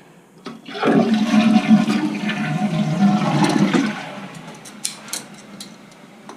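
Toilet flushing: water rushes loudly for about three seconds, then the tank refills more quietly through the newly installed Fluidmaster fill valve.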